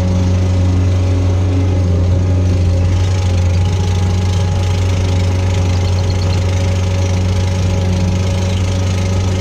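Diesel engine of a compact earthmoving machine running steadily at constant speed, a loud, unchanging low drone.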